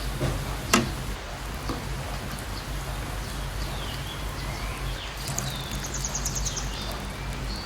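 Birds chirping with short rising and falling calls and a quick high trill a little past halfway, over a steady low hum, with one sharp click near the start.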